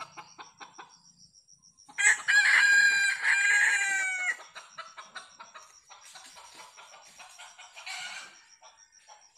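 A red junglefowl (labuyo) rooster crows once, about two seconds in, one loud call of a little over two seconds that dips slightly in pitch at the end. A shorter, fainter call comes near the end, over soft rapid clicking and a thin, steady high whine.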